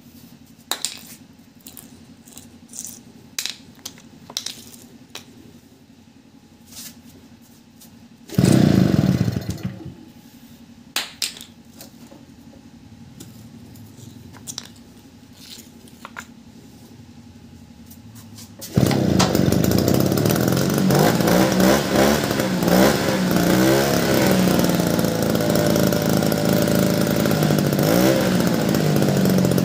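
Power sprayer's small petrol engine being rope-started after a carburetor repair: a loud burst of about a second and a half about eight seconds in, then clicks from handling the starter rope. About nineteen seconds in, it starts and keeps running, its speed rising and falling as the throttle is worked.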